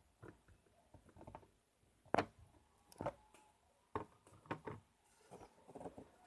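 Clay slime being squished and worked by hand: faint, irregular sticky pops and clicks, the loudest about two seconds in.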